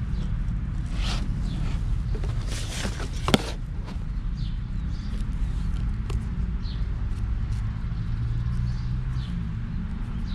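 Rustling and scraping handling noises with a single sharp click about three seconds in, over a steady low rumble.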